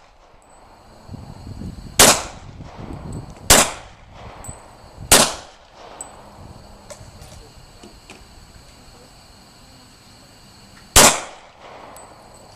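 Glock 22 pistol shots: three single shots about one and a half seconds apart, then a pause of several seconds before a fourth.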